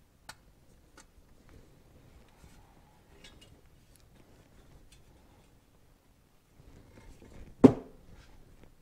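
Light metallic clicks and handling noise as a small spring clip is fitted by hand onto a car's metal shifter plate, then one solid knock near the end as the plate bumps against the workbench.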